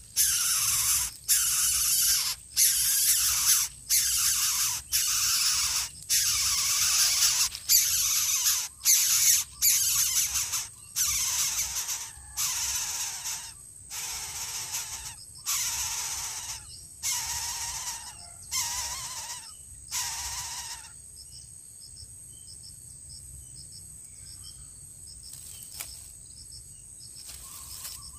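Greater coucal chicks hissing in the nest: a long series of harsh hisses, roughly one a second, growing fainter and stopping about two-thirds of the way through. A thin steady insect whine runs underneath, with crickets after the hissing ends.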